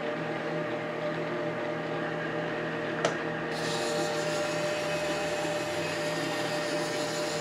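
Monarch engine lathe running with a steady gear whine as it turns a chrome-plated steel bar. About three seconds in there is a click, after which a high hiss joins the whine as the tool takes a light cut through the chrome plating.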